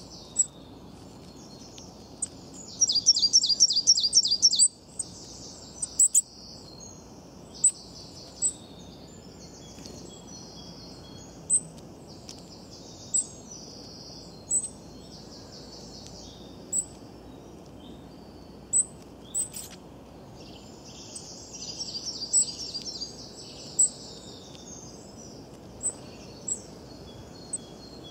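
Small songbirds chirping, a short high chirp repeating every second or two, with a rapid trill of notes about three seconds in and another run of quick notes a little past the twenty-second mark.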